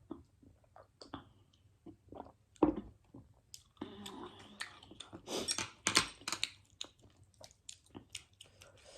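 Close-up chewing of noodles, with many small wet mouth clicks and a denser, noisier stretch of eating in the middle. A single louder knock comes about two and a half seconds in.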